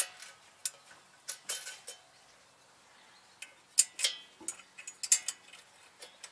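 Irregular metallic clinks and clicks of hand tools and nuts on steel as a car's rear wheel spindle and dust cover are bolted on. The sounds are short and separated by quiet gaps, and they bunch together about four and about five seconds in.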